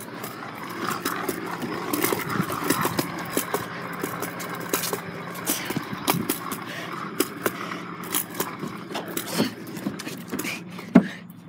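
Ripstick caster board wheels rolling on a concrete sidewalk: a steady rumble with frequent sharp clicks, and one louder clack near the end.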